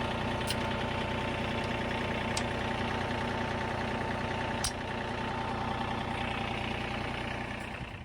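John Deere 3025E compact tractor's three-cylinder diesel running steadily with a constant whine, three sharp ticks along the way, then dying away at the very end as it is shut off.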